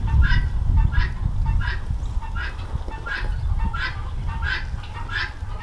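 Poultry calling in a steady series of short calls, about two a second, over a low rumble.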